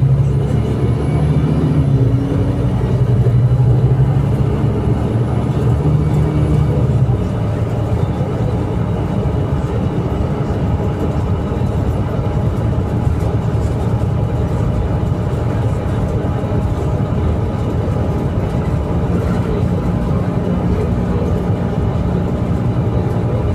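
Scania K310IA 6x2 bus's diesel engine running. It is louder for about the first seven seconds, then eases to a steady, slightly quieter drone.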